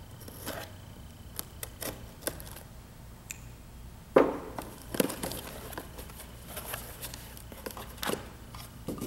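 An X-Acto hobby knife slitting packing tape on a small cardboard box, then the cardboard flaps being pulled open, with scattered scrapes, rustles and clicks. A sharp knock about four seconds in is the loudest sound, with a few softer knocks later.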